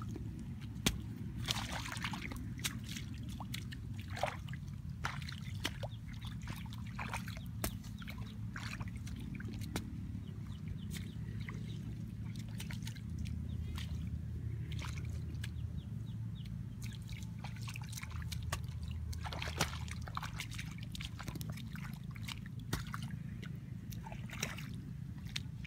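Shallow paddy water sloshing and trickling as a hoe digs and scrapes in the wet mud, with scattered short splashes and knocks over a low steady rumble.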